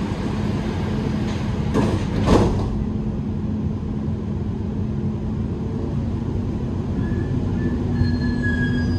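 Dubai Metro train's sliding doors closing with two thuds about two seconds in, over the steady hum of the carriage. Near the end a faint whine sets in as the train starts to pull away.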